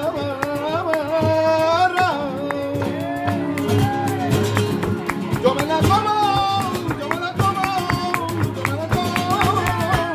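Live flamenco: a male singer sings long, wavering melismatic lines into a microphone over two flamenco guitars strumming and picking.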